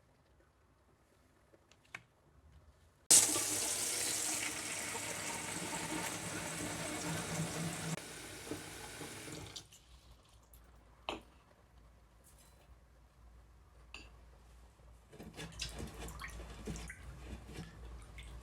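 Kitchen tap turned on about three seconds in, water running into a sink for about six seconds and then shut off. A few light knocks and clatters follow.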